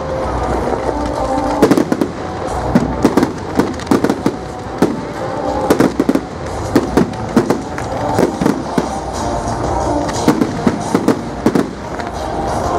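Fireworks display: a rapid, continuous run of sharp bangs and crackles, several a second, with music playing underneath.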